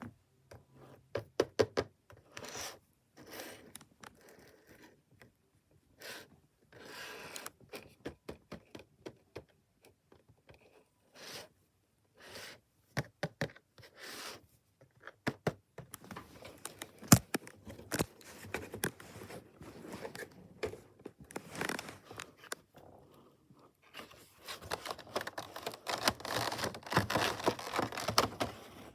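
A Funko Pop box and its packaging being handled and opened. Scattered taps and clicks on the box build into steady scraping and crinkling near the end.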